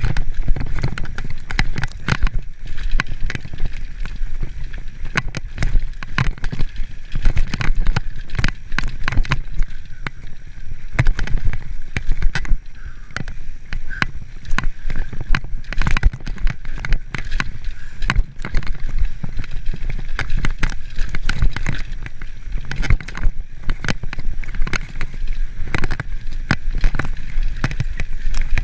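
Mountain bike rattling and clattering as it rolls fast over a rocky dirt singletrack, with many irregular knocks from the frame and components and tyre noise on the dirt, over a steady low wind rumble on the microphone.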